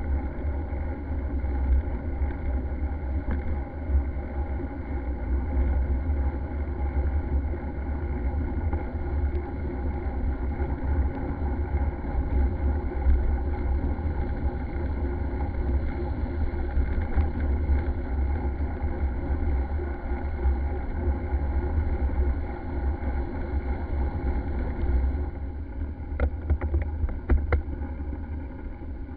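Wind buffeting a handlebar-mounted camera's microphone while riding, a steady low rumble. About 25 s in the rumble lightens and a few sharp clicks or rattles are heard.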